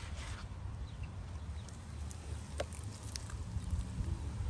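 Steady low outdoor rumble with a few faint, short crackly ticks, as gloved hands set a crisp fried breadcrumb-coated cheese ball onto a burger bun on a wooden board.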